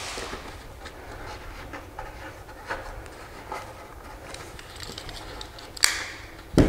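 Fingers rubbing and pushing speaker-box carpet into a cut hole in an MDF box, making light scratching. Near the end a sharp click, then a heavier thump.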